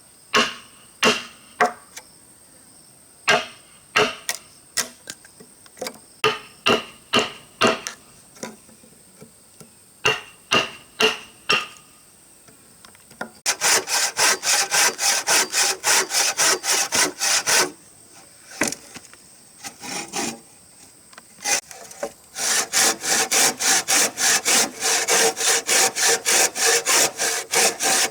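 Hand saw cutting through wood: scattered single strokes at first, then two runs of fast, even back-and-forth sawing, one about halfway in and one near the end.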